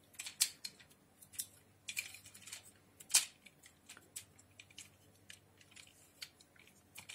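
Irregular light clicks and rattles of a hard-plastic Generation 2 Optimus Prime Transformers figure being handled, its jointed arms and parts moved. One louder click comes about three seconds in.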